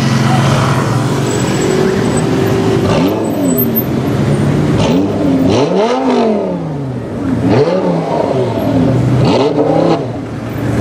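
Tuned Audi R8 V10 Plus with a Per4mance aftermarket exhaust, its V10 engine running steadily and then revved hard about five times, each rev rising and falling in pitch.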